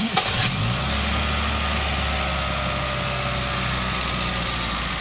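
Toyota Vios 2NZ four-cylinder engine catching on a cold start, rising briefly in pitch within the first second, then settling into a steady idle. On this cold start the idle holds smooth, unlike the rough, stalling idle it has when warm.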